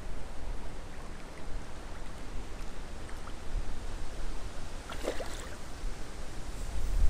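Gusty wind buffeting the microphone as an uneven low rumble over a faint steady hiss, with one brief sharper sound about five seconds in.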